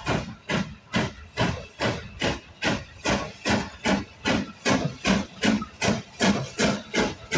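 Steam locomotive exhaust beats from LBSCR H2 Atlantic No. 32424 'Beachy Head' as it works its train of carriages, a sharp chuff about twice a second in an even rhythm.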